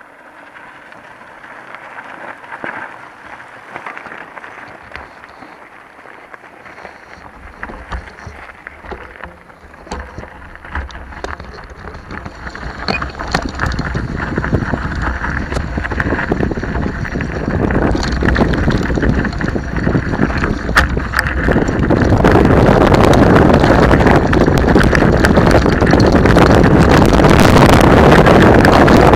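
Wind rushing over a camera microphone and the rattle and crunch of a mountain bike riding down a gravel dirt track, building as the bike gathers speed and loud near the end, with scattered clicks from stones and the bike.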